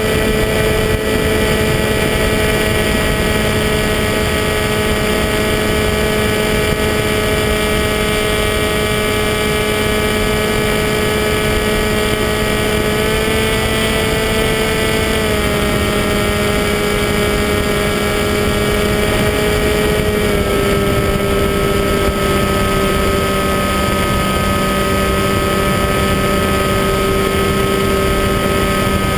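Skywalker 1880 model plane's electric pusher motor and propeller running at steady cruise throttle. The whine rises a little about 13 seconds in, drops back around 15 seconds and eases again around 20 seconds, over wind rushing past the onboard microphone.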